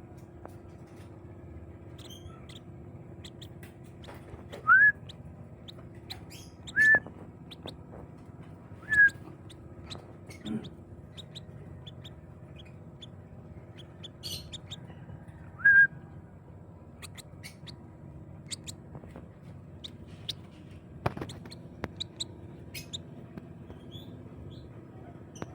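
Lovebird calling: four loud, short calls that rise in pitch. The first three come about two seconds apart, the fourth about seven seconds later, with faint chirps and clicks in between.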